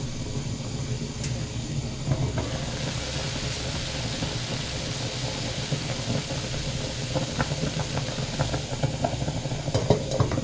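A pot of pork ribs and onions at a hard, rolling boil: a steady low bubbling rumble with a steamy hiss that grows louder in the middle while the lid is off. A few clinks near the end as the glass lid is set back on the pot.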